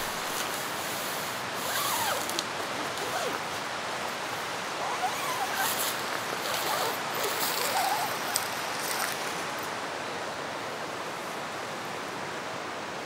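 Steady rushing of a valley stream, with faint short chirping calls and bouts of crisp rustling over the first two-thirds.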